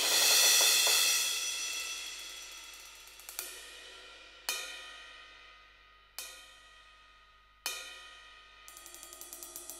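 Cymbal sounds from a Roland TD-17KVX V-Drums kit: a crash rings out and fades over the first few seconds. Then come four single cymbal strikes, each left to ring, and near the end a quick run of light cymbal taps.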